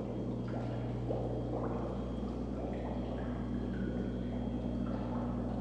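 Pond water gurgling and trickling, over a steady low hum.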